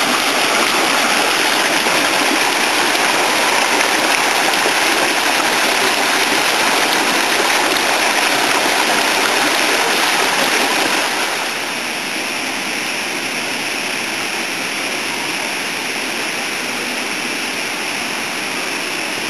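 Water rushing steadily down a fish ladder, a dense even rush that drops a little in loudness about eleven seconds in.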